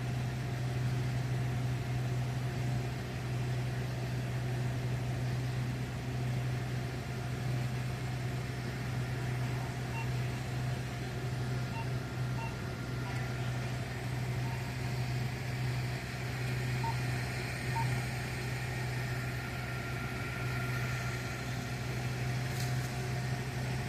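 Vehicle engine idling steadily: an even, continuous low hum with no change in pitch.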